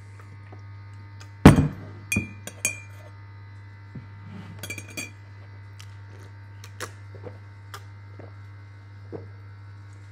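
A sharp knock about a second and a half in, then a metal teaspoon clinking against a ceramic coffee mug in two small clusters of ringing clinks, followed by a few light ticks.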